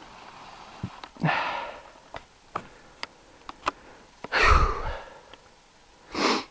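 A person breathing hard and sniffing close to the microphone, three loud breaths with the heaviest about four and a half seconds in, between scattered sharp snaps of twigs and brush underfoot in snow.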